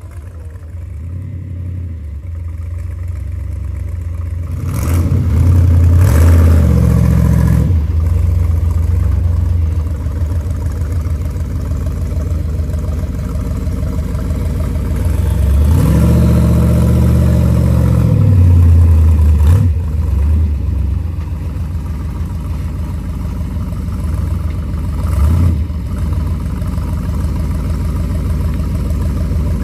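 Off-road vehicle's engine running under load on a trail obstacle, revving twice at length, about five and sixteen seconds in, each rev rising and then falling in pitch, with a short blip near the end.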